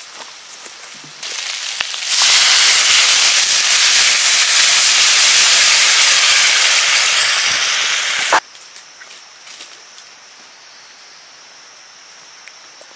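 Loud, steady hiss of steam escaping from a cooking pot, starting softer about a second in, swelling sharply a second later, then cutting off abruptly with a click after about six seconds.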